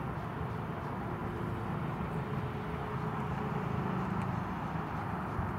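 Steady low rumble of distant road traffic, with the faint hum of a vehicle engine coming and going.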